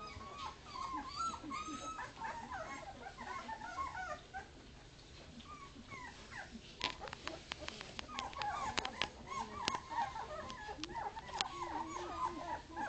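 A litter of two-week-old Leonberger puppies crying together in many short, overlapping, high cries; the pups are crying for their mother. About seven seconds in, a run of sharp clicks and knocks sounds over the cries for several seconds.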